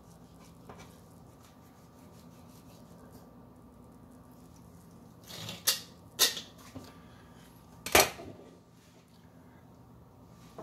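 Fillet knife cutting and knocking on a plastic cutting board while trimming a fish fillet: a short scrape ending in a sharp knock about halfway through, a second knock just after, and the loudest knock a couple of seconds later, over a faint steady hum.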